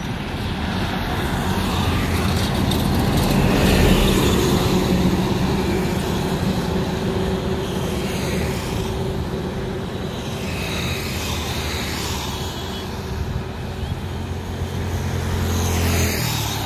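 Road traffic passing close by: loaded trucks, cars and motorbikes going by one after another, engine and tyre noise swelling with each pass, loudest about four seconds in.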